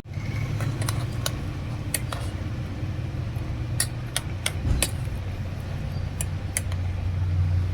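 A steady low hum with a dozen or so sharp clicks and clinks scattered through it.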